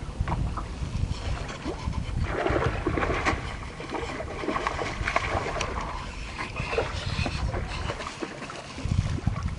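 Wind rumbling on the microphone while a hooked largemouth bass is fought on a rod, with bursts of splashing and thrashing at the water's surface from about two to six seconds in.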